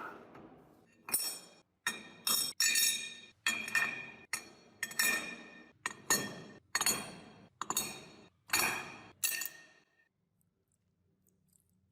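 About a dozen sharp, ringing clinks of a hard object being struck or tapped, at an uneven pace, each ringing on briefly at the same few pitches, stopping near the end.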